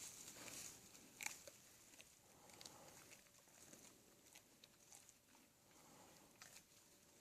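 Faint crunching and cracking of black bears chewing peanuts, a scatter of short clicks with one sharper crack about a second in.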